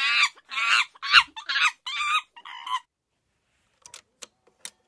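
A rapid string of loud, wavering squawk-like calls for about the first three seconds. About four seconds in come four sharp clicks from the Dual 1228 turntable's mechanism.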